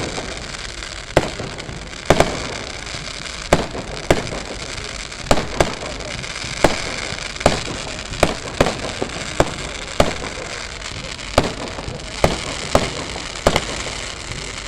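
Aerial fireworks bursting in quick, irregular succession, about one to two loud bangs a second, over a continuous crackle.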